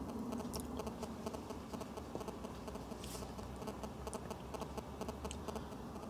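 Faint, scattered light clicks and taps of a hand handling a touchscreen smartphone, over a low steady hum.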